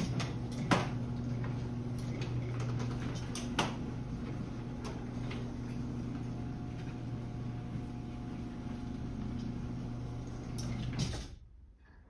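Chamberlain Whisper Drive WD822KLS belt-drive garage door opener closing a sectional door. The motor runs with a steady hum, with clicks and knocks from the door and rail, and it cuts off about eleven seconds in as the door reaches the floor.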